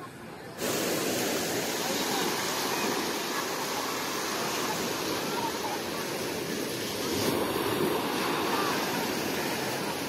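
Sea surf washing onto a sandy beach: a steady, even hiss of small waves that starts suddenly about half a second in.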